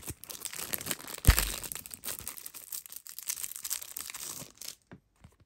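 Clear plastic wrapping being torn open and crinkled by hand, with one loud crack about a second in. The crinkling stops shortly before the end.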